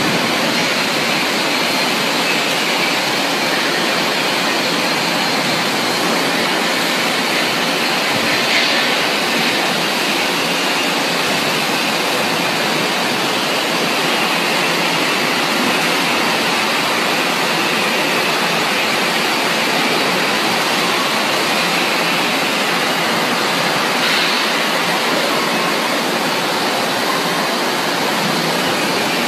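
Steady, loud rushing noise of factory machinery running around a multi-layer press veneer dryer, with a faint high whine over it.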